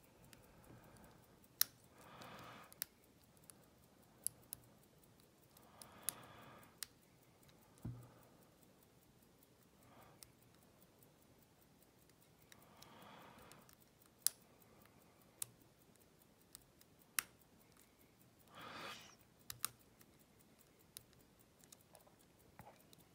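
Faint, scattered light clicks of a lock pick working the pin stacks of a U-Change lock during single pin picking, with a few soft scraping swishes in between.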